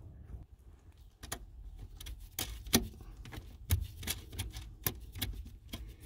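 Small metal parts clicking and rattling irregularly as the brake light switch is worked into its bracket and its nut is started on the thread by hand.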